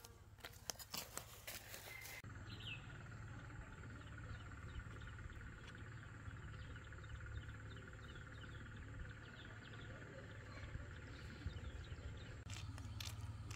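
Outdoor animal ambience: many short, high chirps over a steady low hum, after a few knocks in the first two seconds.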